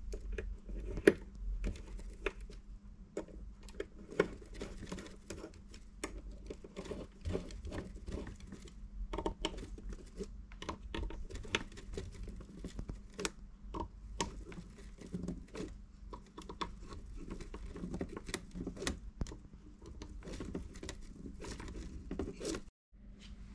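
Screwdriver working on a turntable motor's stator assembly: a run of small, irregular metallic clicks and scrapes over a faint steady hum.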